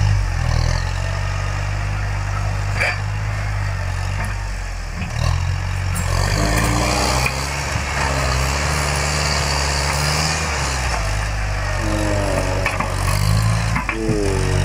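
Farm tractor's diesel engine working under load as its front dozer blade pushes soil, the engine note shifting up and down as the load changes.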